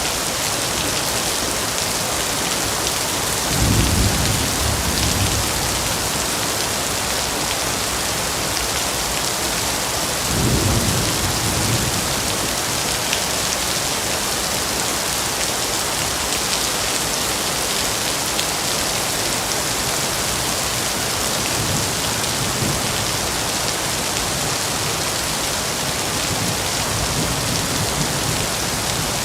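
Steady heavy rain falling, an even hiss, with low rolls of thunder about 4 and 11 seconds in and fainter distant rumbles later.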